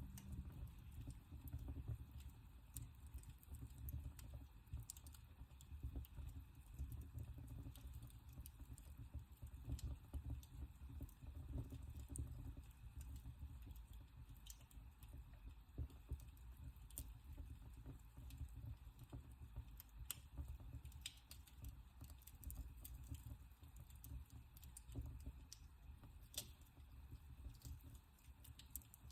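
Wood fire burning in a fireplace, crackling faintly with scattered small snaps and pops over a low steady rumble.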